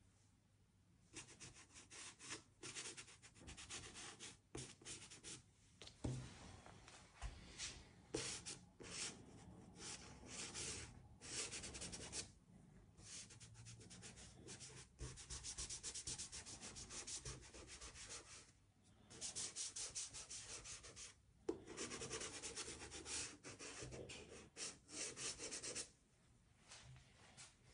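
Soft pastel being worked into textured pastel paper by hand: runs of quick, faint rubbing and scraping strokes with short pauses, stopping near the end.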